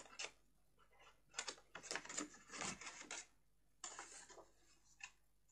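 Small scissors snipping notches into cardstock: faint runs of quick clicking snips, then a single click near the end.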